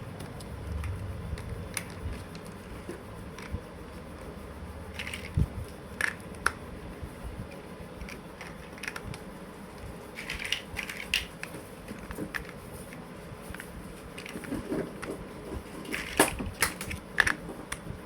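Plastic toy building blocks clicking and clattering as they are handled and pressed together: scattered sharp clicks, some coming in quick clusters.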